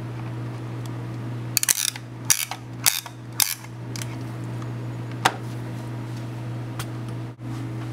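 Push-type MTP connector cleaner clicking as it is pushed onto a fiber-optic connector's end face: a run of sharp clicks from about one and a half to three and a half seconds in, then two single clicks later, over a steady low hum.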